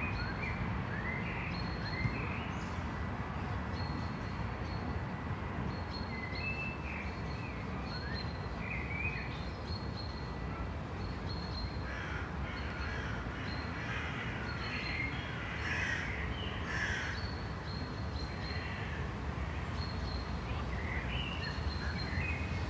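City street ambience: a steady low rumble of distant traffic with birds calling over it, busiest midway through.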